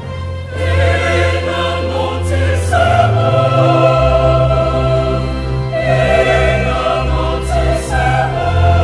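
Mixed choir singing a Twi choral anthem in full harmony, holding long chords. Electronic keyboards accompany them with a sustained bass line that steps to new notes about three and four seconds in.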